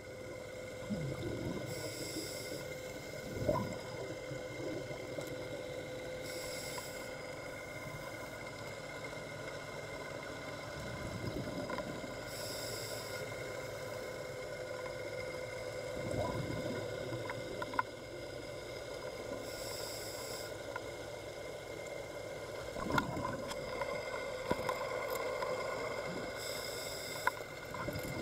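Scuba diver breathing through a regulator underwater: a short hiss on each of five inhalations, about every six to seven seconds, and a rush of bubbling between them as each breath is exhaled, over a steady hum.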